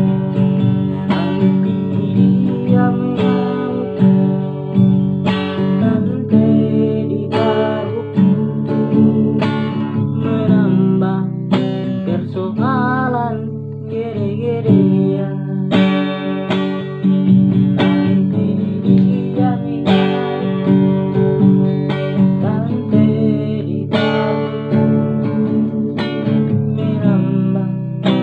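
Acoustic guitar music, strummed chords about once a second, with a singing voice in places.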